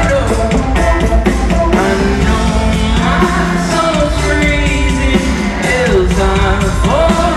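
Loud live band music at a concert: a steady bass and drum beat under a gliding melodic line.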